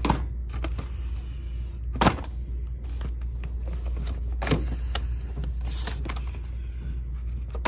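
Cardboard egg-dye kit boxes handled on a store shelf: three sharp knocks and a few small clicks as the boxes are picked up and set down, over a steady low hum.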